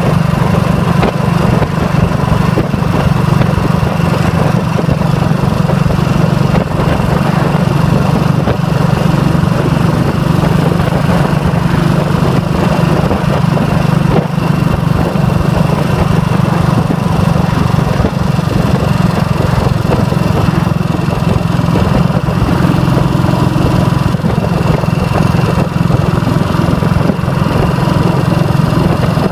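Royal Enfield Bullet 500's single-cylinder engine running at a steady cruise under the rider, its note holding even throughout.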